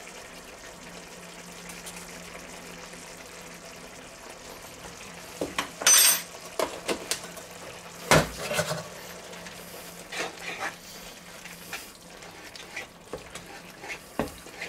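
Kitchen handling sounds at a frying pan: a cluster of clicks and a ringing clink about six seconds in, a loud knock just after eight seconds, then lighter knocks and scrapes as a wooden spatula stirs a simmering sauce. A low steady hum runs underneath.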